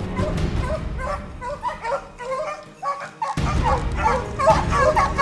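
A pack of beagles baying on a rabbit's trail, several voices overlapping. The baying dips briefly midway, then grows louder and denser near the end as the hounds close in.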